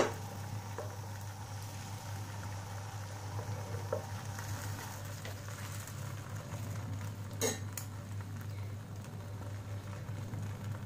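Egg-and-vegetable batter sizzling softly in an oiled nonstick frying pan, with a low steady hum underneath. A steel ladle gives a light clink at about four seconds and a sharper one at about seven and a half seconds.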